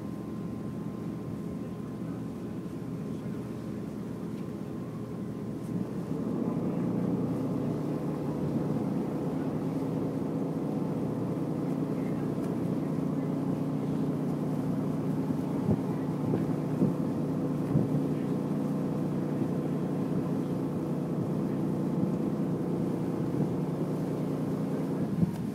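Passenger ferry's engines running under way, a steady drone with a low hum and water and air rush; it gets louder about six seconds in.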